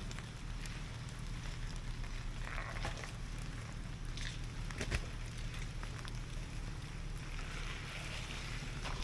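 Off-road vehicle engine running at a low, steady drone with scattered knocks, clicks and crunches, typical of crawling slowly over a rough trail.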